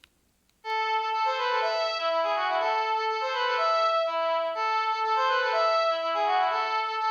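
Panasonic KX-TG8301JT cordless phone playing a polyphonic ringtone: a melody of quick electronic notes that begins about half a second in, after a brief gap.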